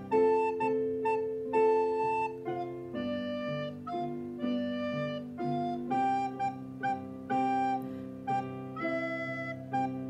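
Soprano recorder playing a simple folk-song melody in separate, tongued notes, over a lower accompaniment holding long notes underneath.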